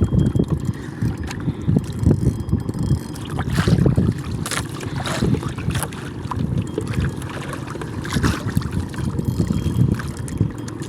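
Wind buffeting the microphone in uneven low gusts, with a few sharp clicks around the middle.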